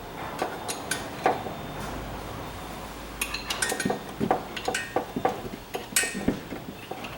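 Metal tools clinking and knocking irregularly, a cluster of sharp metallic taps thickening after about three seconds, as a pulley puller is handled and fitted onto the pulley.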